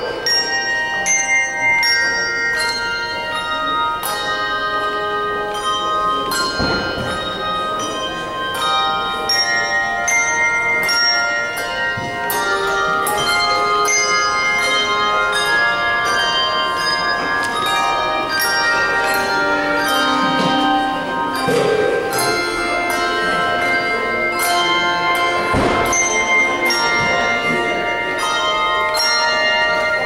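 Handbell choir playing a piece: many brass handbells rung in turn, their clear notes starting one after another and ringing on over each other.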